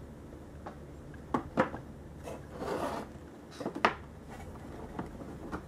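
An RC boat hull being set down into its stand and shifted into place: a few light knocks and clicks, with a short rubbing scrape between them.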